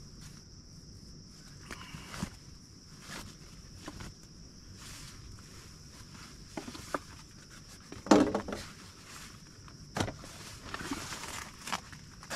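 Rustling, scuffing and light knocks of gear being handled and pulled out of a backpack, with the loudest rustle about eight seconds in and a sharp knock about ten seconds in. A steady high-pitched drone runs underneath.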